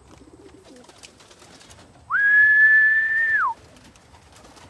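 A single long whistle about two seconds in, held on one steady pitch for about a second and a half, sliding up at the start and dropping away at the end: a fancier's call to bring returning racing pigeons down to the loft.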